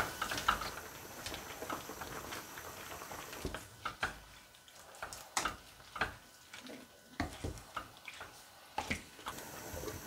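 Wooden spoon stirring a pot of simmering sinigang soup with shrimp and vegetables: scattered light knocks against the pot and soft liquid sloshing.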